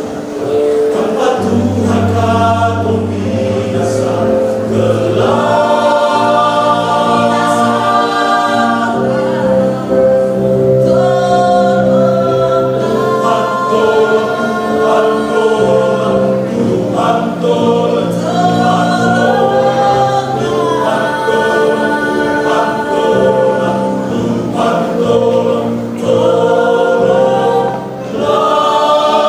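Church choir singing, with long held notes.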